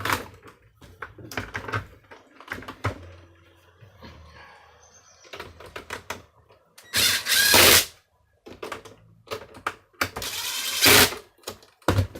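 Clicking and knocking of plastic vacuum-cleaner parts and tools being handled and fitted together during reassembly. Two louder rasping bursts of about a second each come about seven and ten seconds in.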